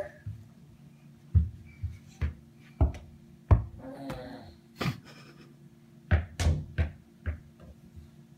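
Irregular soft thumps and knocks, about a dozen and bunched together near the end, from a toddler moving about at the top of the stairs. A brief child's vocal sound comes about four seconds in.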